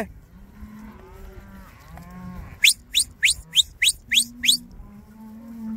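Black cattle mooing, low and drawn out, several times. About halfway through, seven quick, sharp rising whistles in a row, a herder's whistle to the working dogs.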